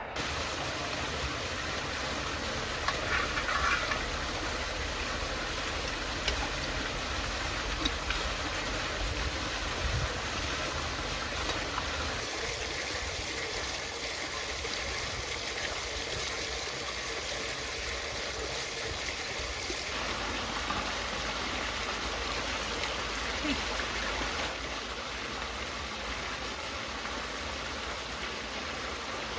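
Stream water flowing steadily, a continuous rushing and babbling.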